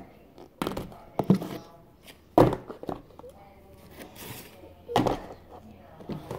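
Plastic storage tubs being handled, stacked and set down on a counter: a handful of hollow thunks and knocks, the loudest about two and a half seconds in, with a faint voice between them.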